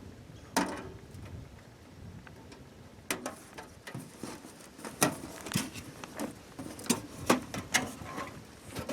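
Irregular clicks, taps and light knocks of objects being handled, coming more often in the second half.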